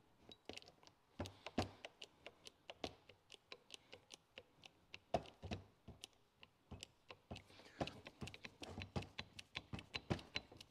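Hand crimping tool being worked on a battery cable lug: a quick, irregular run of small metal clicks and ticks as the handles are squeezed and the jaws close on the lug.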